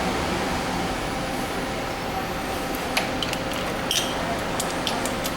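Steady workshop hum, then from about three seconds in a run of light, irregular clicks and ticks of hand tools on metal parts.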